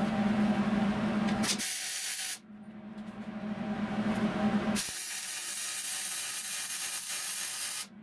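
TIG welding from an Eastwood TIG 200 welder on thin sheet-steel torque box seams: a steady buzzing hum that twice gives way to a bright hiss, briefly about a second and a half in and for about three seconds from near the fifth second.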